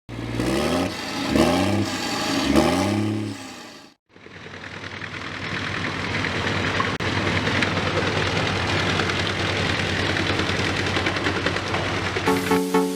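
Wood chipper machinery running steadily, a dense rushing noise over a low hum. It is preceded by three rising-and-falling pitched sweeps that stop abruptly about four seconds in. Music comes in near the end.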